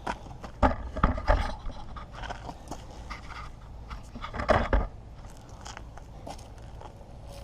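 Handling noises as parts are moved about: clusters of knocks and scrapes about a second in and again just past the middle.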